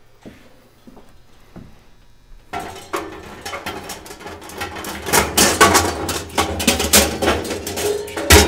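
Steel charcoal basket clanking and scraping against the inside of a stainless steel drum smoker as it is lowered in and worked into place. Faint clicks at first, then from about two and a half seconds in a busy run of metal knocks with some ringing, getting louder toward the end.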